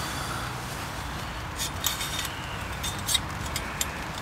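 A scatter of short, sharp clicks and rustles, as of items being handled, over a steady background hiss; the clicks come in the second half, the loudest about two and three seconds in.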